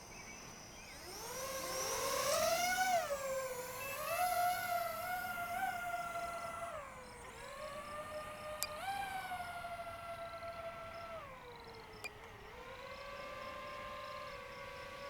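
DJI FPV drone's motors whining as it lifts off: the pitch climbs about a second in, then rises and falls with the throttle, dips twice, and settles into a steady tone near the end.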